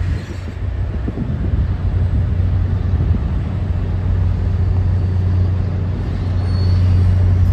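MBTA commuter rail diesel locomotive moving past with its engine running: a steady low drone that grows louder.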